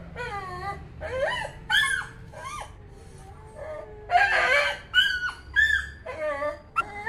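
Two cats yowling at each other in a standoff: a string of short, wavering calls that rise and fall in pitch, about nine in all.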